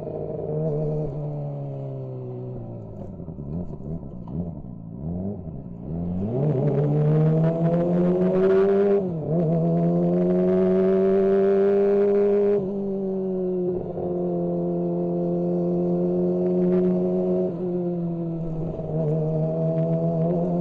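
Kawasaki ZX-25R's 250 cc inline-four engine heard from onboard: it slows off the throttle for several seconds, then accelerates with rising revs, drops briefly in a quick upshift about nine seconds in and climbs again. Around twelve seconds in the revs fall suddenly and it settles to a steady cruise with a few small throttle changes.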